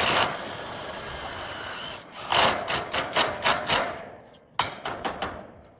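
Hand-tool work: a run of about six or seven quick, sharp knocking or scraping strokes about two seconds in, at roughly four a second, then two more a little before the end. A short noisy burst comes at the very start.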